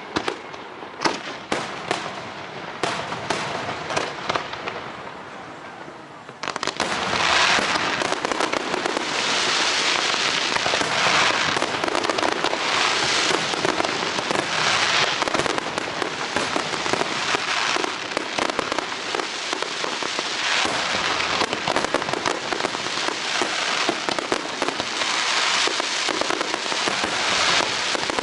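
Fireworks display: scattered sharp bangs and cracks for the first six seconds or so, then a sudden jump into a dense, continuous barrage of crackling that swells and eases in waves.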